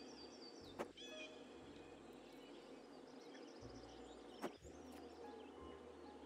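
Faint bird chirps over low background hiss and hum, clustered in the first second, with two sharp clicks, one about a second in and one near the middle.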